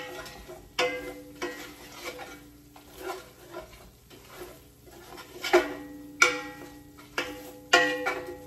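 A metal utensil knocking against a cooking pot about half a dozen times, each knock leaving a short ringing tone, with quieter stirring scrapes in between; most of the knocks come in the last three seconds.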